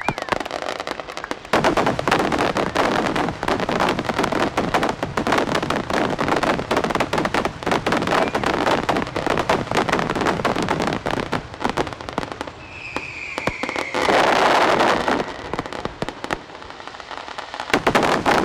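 Fireworks display: a rapid, dense run of bangs and crackles from aerial shells, with a high falling whistle and a louder, longer burst about two-thirds of the way through.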